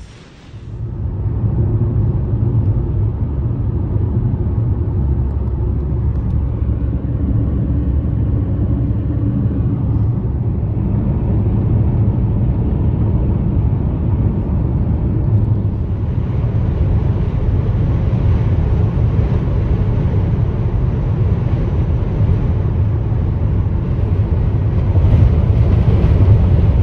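A car driving at road speed: a steady rumble of tyres and engine heard from inside the cabin. About two-thirds of the way through, the noise takes on more hiss.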